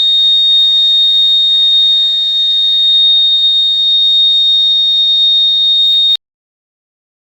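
A home-built fire alarm circuit's buzzer sounding one steady, loud, high-pitched tone, the alarm set off by the thermistor sensing a rise in temperature. It cuts off suddenly about six seconds in.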